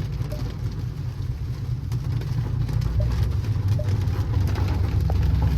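Chrysler 300C's Hemi V8 running with a steady low rumble while driving on wet roads, over the hiss of rain and wet tyres. The engine note grows a little louder about halfway through.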